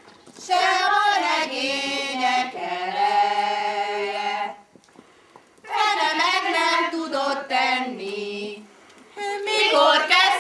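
A group of women singing a Hungarian folk song together, unaccompanied, in phrases with a long held note in the first and short breath pauses between them.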